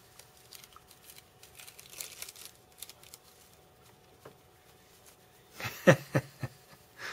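Thin plastic adhesive backing film being peeled and handled by fingers: faint crinkling, rustling and small ticks. About six seconds in comes a quick cluster of a few much louder, short sounds.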